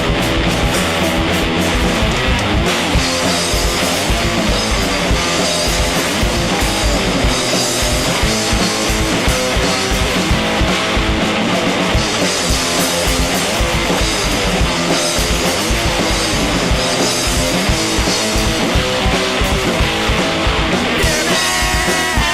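Punk rock trio playing an instrumental passage: distorted electric guitar, bass and drum kit, with no singing. About a second before the end the cymbals drop out and a wavering held note comes in.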